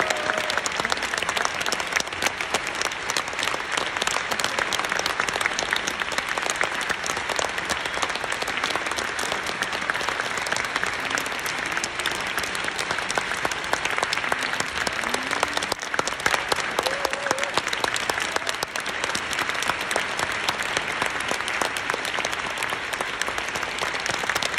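Large theatre audience applauding steadily at a ballet curtain call: dense, continuous clapping at an even level.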